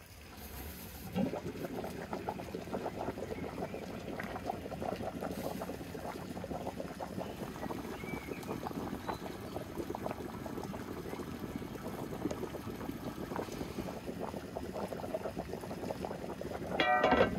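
Water boiling in a large cauldron, bubbling steadily around a stuffed lamb stomach. A brief, louder sound with a ringing pitch cuts in near the end.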